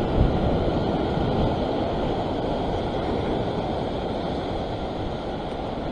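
Steady rush of seawater washing over a rock ledge, a low rumbling noise with no separate knocks or splashes.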